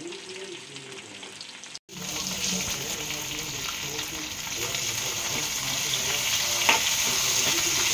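Shallots, curry leaves, mint and coriander sizzling in hot oil in a kadai. After a short break about two seconds in, the sizzle comes back louder and keeps building as a steel spoon stirs them, clinking against the pan a couple of times near the end.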